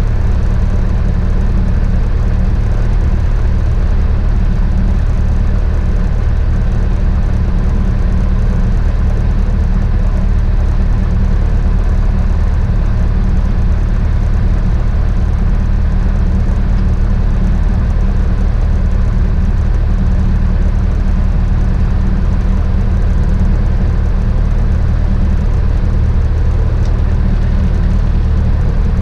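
Beechcraft Musketeer's single piston engine and propeller running steadily, heard from inside the cabin.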